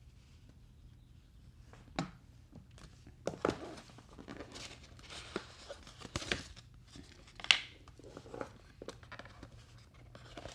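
A smartphone's retail box and its packaging being opened and handled: irregular rustling and crinkling with sharp clicks and taps, starting about two seconds in.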